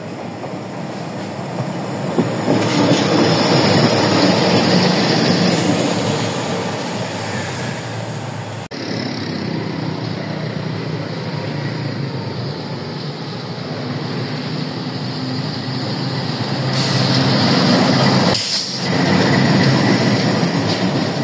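KAI CC 206 diesel-electric locomotive running light during shunting, its diesel engine running and its wheels rolling on the rails as it comes close. It grows louder twice, a few seconds in and again near the end, with a sudden break about a third of the way through.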